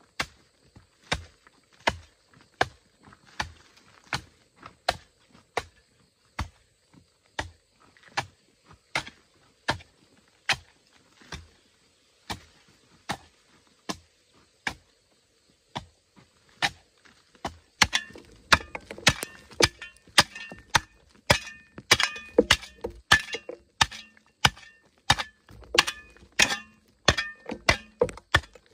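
Hoe chopping into a hard red clay bank in steady strokes, a little over one a second. About two-thirds of the way through, the strikes come faster and louder, with a short metallic ring from the blade.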